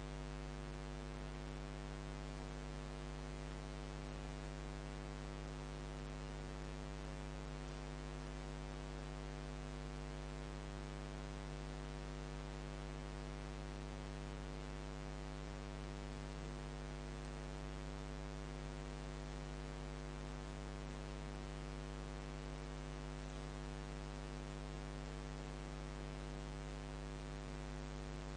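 Low, steady electrical mains hum with a buzzy row of overtones over a layer of hiss.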